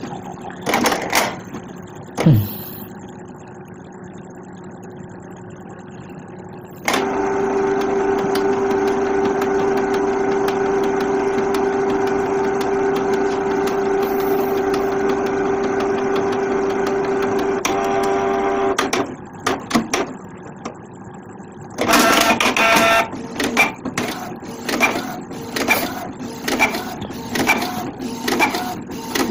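Canon PIXMA iP2770 inkjet printer running a nozzle-check test print: a few clicks, then a steady motor whine for about twelve seconds, then near the end a fast run of clicks and whirs as the page prints and feeds out.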